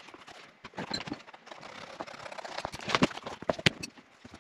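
Leather being handled and pressed on a cutting mat, then scissors snipping through thick leather: a run of sharp irregular clicks and crunches, loudest in the last second and a half.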